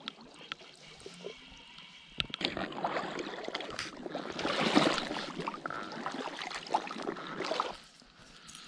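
Water splashing, sloshing and bubbling as an angler moves his legs through the lake, loudest about halfway through, with a few small clicks in the first couple of seconds.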